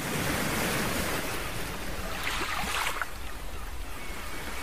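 Steady rushing ambient noise, with a few faint, short, high chirps about two to three seconds in.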